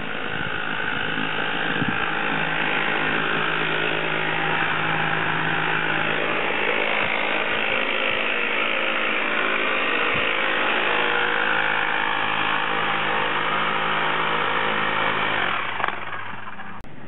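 An engine-driven machine running steadily at constant speed, cutting off abruptly near the end.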